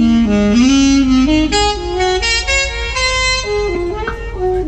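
Music: a saxophone playing a melody of short stepped notes over a steady bass.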